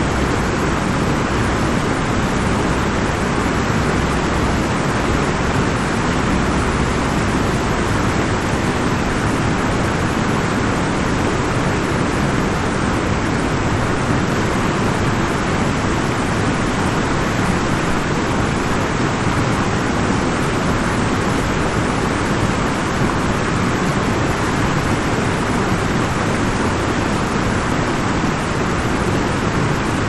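A large waterfall's steady rush of falling water, an even noise that does not change.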